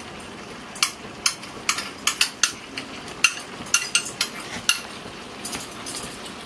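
Steel spoon tapping and scraping against a glass bowl, a quick irregular run of sharp clinks, as thick ground coconut paste is knocked out into a pot of vegetables.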